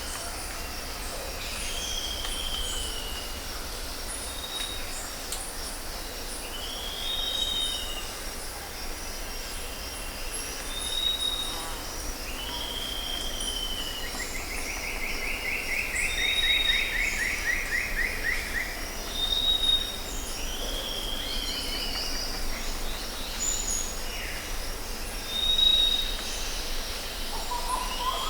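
Jungle ambience: several birds calling with short whistled notes again and again, and one long, rapid trill that falls slightly in pitch about halfway through, over a steady high insect drone and a low rumble.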